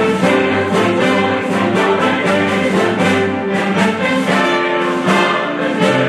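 Concert band playing live, with brass instruments such as trumpets and trombones carrying sustained chords.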